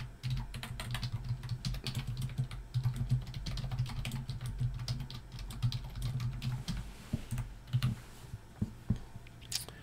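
Typing on a computer keyboard: a fast, uneven run of key clicks that thins out after about eight seconds to a few single keystrokes.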